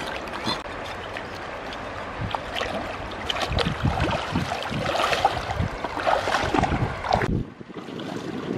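Shallow river water splashing and sloshing as a person wades and rinses a pig's head in it. The splashing grows louder and busier about halfway through, drops away suddenly near the end, then picks up again.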